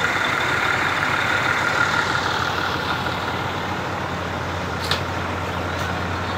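Heavy diesel engine running steadily at low revs, with a high whine that fades out about halfway through. A single short click comes near the end.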